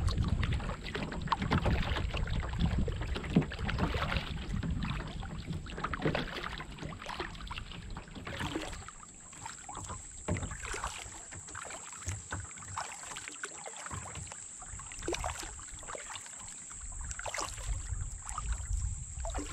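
Kayak paddle strokes dipping and splashing in calm lake water, with drips running off the blade, in an irregular rhythm. Wind rumbles on the microphone in the first half and again near the end.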